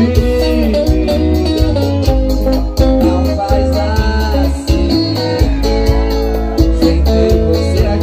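Live band playing amplified through a PA, with a man singing into a microphone over guitar and keyboard and a steady, heavy bass-and-drum beat.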